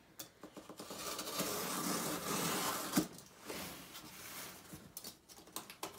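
Box cutter blade slicing along the packing tape on a cardboard shipping box: two long scraping strokes, with one sharp click about three seconds in and a few light ticks near the end.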